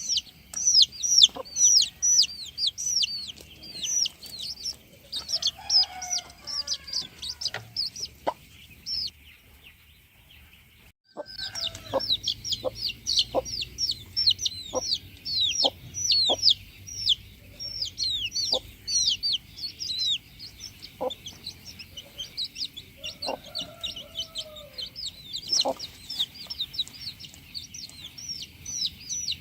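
Chickens: a dense, constant chorus of high, short, falling chirps with scattered lower clucks and a few longer calls. The sound drops out briefly a little over a third of the way in, then carries on.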